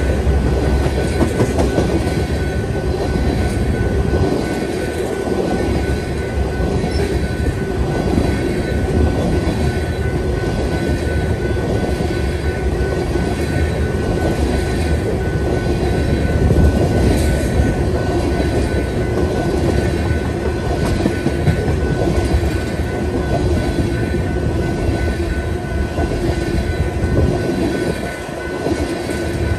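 Tank cars of a crude oil freight train rolling past close by: a steady heavy rumble with repeated clicks of wheels over rail joints and a thin, steady high ring from the wheels.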